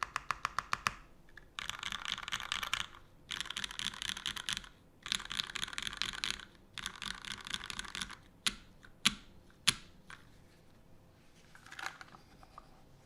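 Custom mechanical keyboard with lubed Cherry MX Black linear switches on an aluminum plate and GMK keycaps being typed on: a short run of evenly spaced single keystrokes, then four bursts of fast typing, then a few separate, louder key strikes about a second apart.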